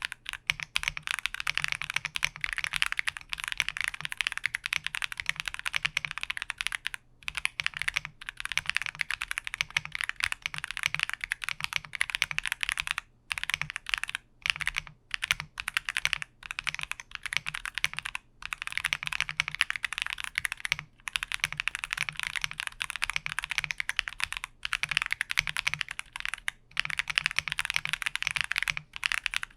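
Continuous fast typing on an Akko Mod007 V3 VIA mechanical keyboard fitted with Akko V3 Cream Black Pro switches and Cream MDA keycaps, a quick run of clicks broken by a few short pauses.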